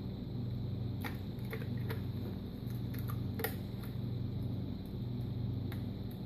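Steady low hum in a small room, with a few light clicks and ticks of hands working on a foam model wing between about one and three and a half seconds in.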